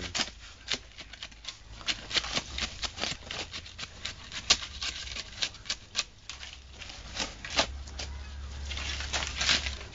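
Shovels scraping and chopping through a dry sand, gravel and cement mix on the ground, shaping it into a ring for mixing concrete: a quick, irregular run of gritty scrapes and clicks.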